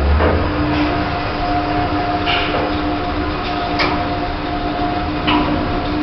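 Otis Gen2 lift travelling: after a low thump at the start, its drive motor sets up a steady whine of two held tones under the noise of the moving car, with a few light clicks along the way.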